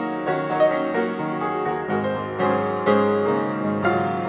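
Background piano music, notes struck one after another in a gentle melody.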